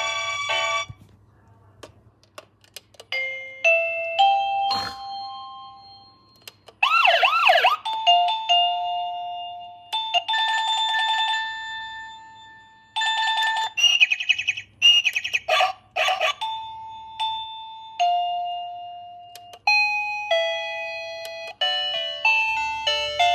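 Doorbell chime playing one electronic tune after another, separated by short gaps. The tunes include short stepping melodies, a warbling sweep, held two-note ding-dong tones and a fast trill.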